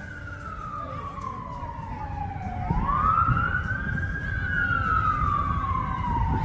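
Emergency vehicle siren in a slow wail, its pitch falling and rising about every four seconds, growing louder over the first few seconds, over a low rumble.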